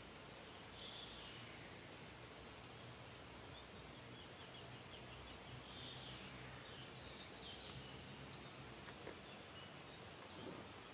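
Faint outdoor ambience: a steady high insect drone with short, high chirps every second or two over a faint low hum.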